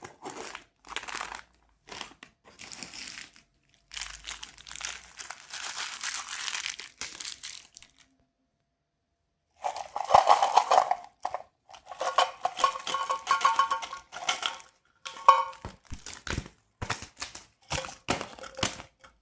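Sweet wrappers being crinkled and torn open in irregular spells, with a brief pause about eight seconds in. A louder, squeakier stretch of rustling follows, and the end brings sharp clicks and crunches.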